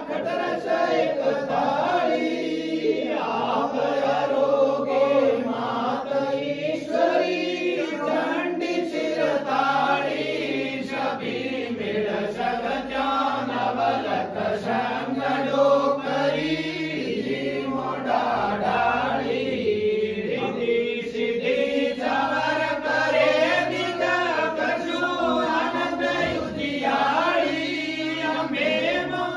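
Several men singing a Hindu devotional aarti hymn together in unison, without a break, over a steady beat of short strokes.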